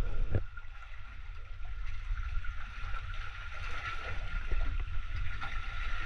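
Sea water lapping and sloshing close to the microphone as a swimmer floats, over a heavy low rumble, with one sharp knock about half a second in.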